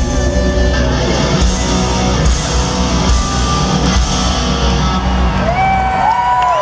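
Live rock band playing at full volume: an electric guitar solo over the band. Near the end the guitar plays long bent notes that slide up and hold.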